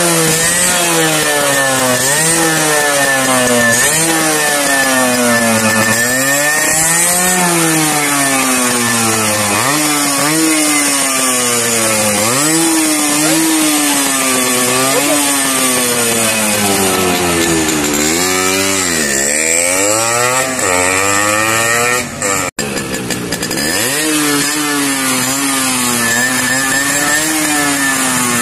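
Yamaha RX 100's small single-cylinder two-stroke engine being revved over and over, its pitch rising and falling every second or two.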